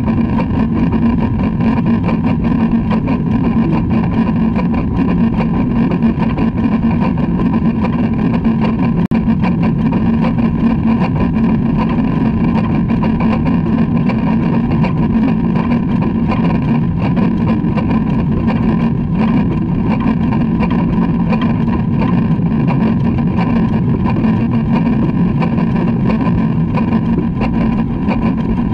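LMS Black 5 steam locomotive No 45407 running along the line, heard from its front buffer beam as a loud, steady running noise that doesn't let up.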